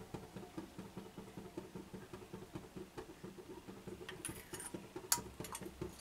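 Faint light clicks of a metal spoon against a stainless-steel bowl as mustard oil is spooned over raw potato and vegetable pieces, with a few sharper clicks about four to five seconds in.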